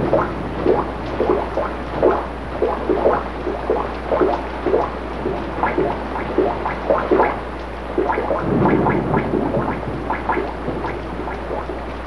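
Drips from a leaking roof falling into water-filled enamel pans and a metal pitcher: a quick, irregular run of ringing plinks and plops, several a second, over the steady hiss of heavy rain.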